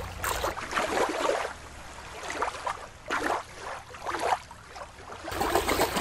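Water lapping and sloshing in four or five uneven swells.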